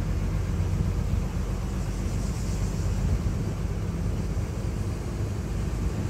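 Steady engine and road rumble heard inside the cabin of a moving vehicle.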